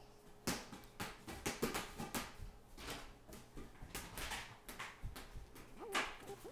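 Irregular knocks, taps and light clatters of toddlers playing on a hard floor, with a brief child's vocal sound about six seconds in.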